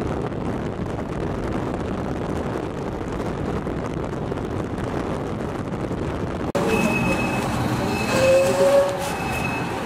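Motorcycle riding noise: wind rushing over a helmet-mounted microphone, with the bike running along the road. About six and a half seconds in it cuts to roadside street traffic, with a high electronic beep repeating about once a second and a brief louder tone near the end.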